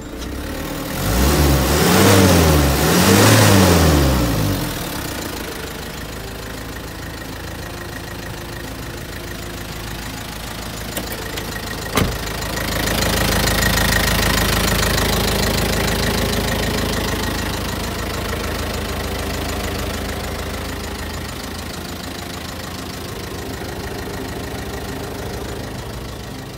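Isuzu Elf truck engine revved twice, each rev rising and falling, then settling to a steady idle. About halfway through there is a single sharp click, and the idle turns louder for a few seconds.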